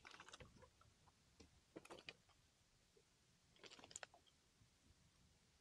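Near silence broken by three brief clusters of faint clicks and rattles, roughly two seconds apart.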